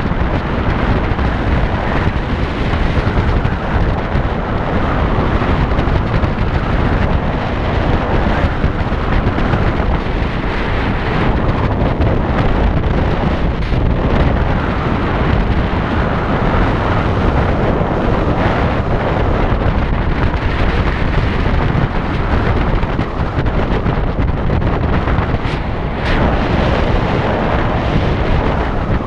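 Loud, steady wind rush buffeting the microphone on a moving motorcycle, with vehicle and road noise underneath.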